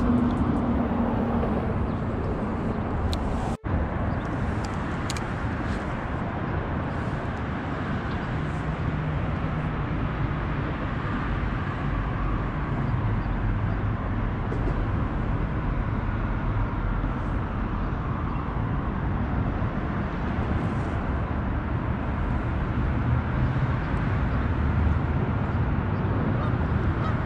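Steady rumble of road traffic from highway overpasses. The sound cuts out for an instant about three and a half seconds in.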